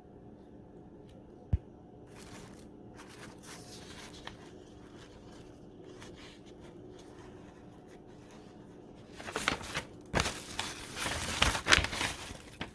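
Takeout packaging being handled: crinkling and rustling that gets loud over the last few seconds, after a single short knock about one and a half seconds in.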